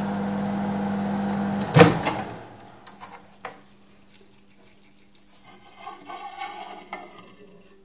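Microwave oven running with a steady hum, cut short by a loud clunk about two seconds in, after which the hum drops away. Faint clicks and handling noises follow, with a busier patch near the end.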